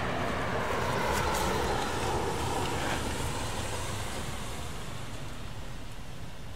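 A car passing on the street, its road noise swelling over the first second or two and then slowly fading away.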